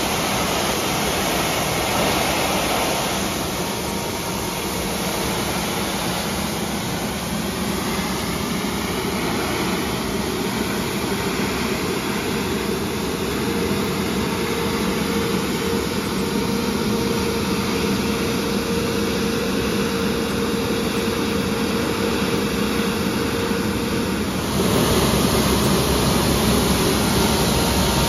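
Bucher Municipal V65 mechanical road sweeper at work: a steady engine and machinery drone with a faint constant whine, over the rushing scrub of the spinning channel brush and water spray on the road. It gets suddenly louder for the last few seconds.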